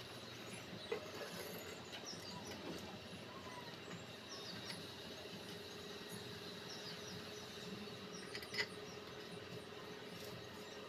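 Quiet background with a faint steady hum and scattered distant bird chirps, broken by a couple of soft clicks: about a second in and again a little after eight seconds, as the metal gearbox rear cover is handled and seated over the main shaft.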